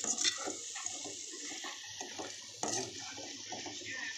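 Masala-coated chicken pieces sizzling in hot oil in a metal pan on a low flame, a steady frying hiss, with the spatula scraping against the pan as they are stirred.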